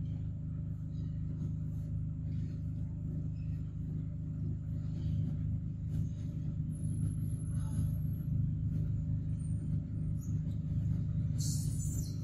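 A steady low rumble, with a short high chirp near the end.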